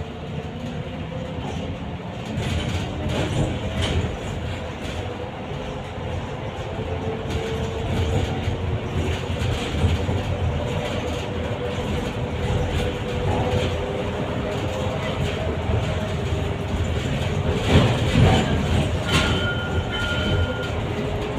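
Ride inside a moving electric trolleybus: the traction motor's whine drifts up and down in pitch with speed over steady road rumble and body rattle. A few knocks sound about 18 s in, followed by a short steady high tone.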